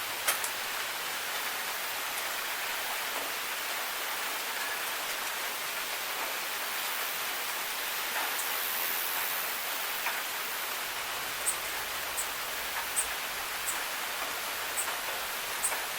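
Steady rain, an even hiss, with scattered sharp ticks of single drops, coming more often in the last few seconds.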